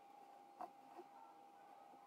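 Near silence: room tone with a faint steady hum and a faint click a little over half a second in.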